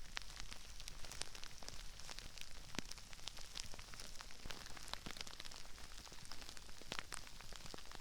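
Crispy rice raining down around a binaural microphone: a dense, irregular patter of small crisp crackles and pops, with a sharper, closer snap every second or so.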